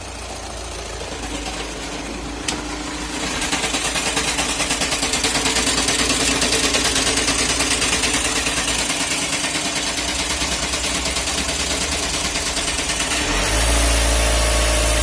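Volkswagen Passat engine idling with a steady, fast pulsing vibration. The noise comes from its seized dual-mass flywheel, whose two masses have jammed and set the shaft vibrating. The sound grows louder and deeper near the end, heard from under the car at the gearbox.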